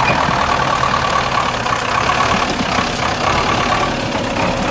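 GAZ-66 army truck's engine running steadily at low speed as the truck crawls past through snow and brush.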